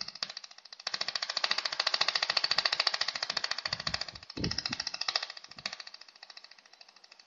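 Automatic pulsed laser welder firing on a metal shelf joint: a rapid, even train of sharp ticks, many a second, loudest through the first half and growing quieter near the end. A few low thuds sound about halfway through.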